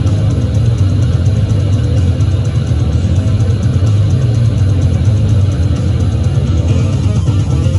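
Heavy rock band playing loudly: a distorted electric guitar riff through a Marshall amplifier stack, heavy in the low end, over a fast, even ticking in the highs.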